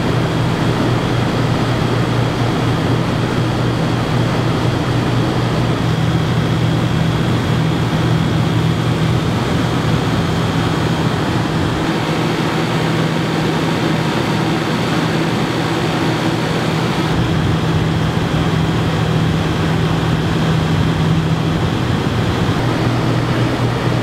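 Dometic Brisk II rooftop RV air conditioner running with its cover off: the compressor hums steadily under the rush of the condenser fan. It is fitted with a Supco SPP6 hard start capacitor and running on generator power.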